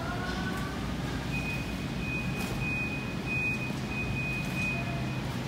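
Supermarket background hum, with a high electronic beep sounding in long pulses from about a second in until near the end.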